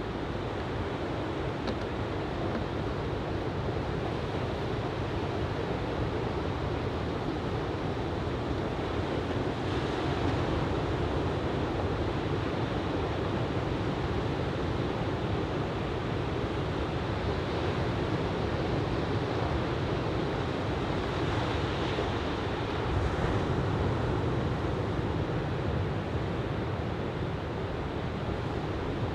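Shoulder-high typhoon swell breaking on a sandy beach: a steady wash of surf, with wind on the microphone, swelling a little about ten seconds in and again a little past twenty seconds.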